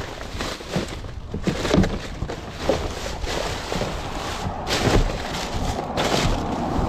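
Plastic bags, cardboard cartons and food packaging rustling and crinkling as gloved hands rummage through a plastic wheelie bin, in irregular crackles with a few sharper knocks.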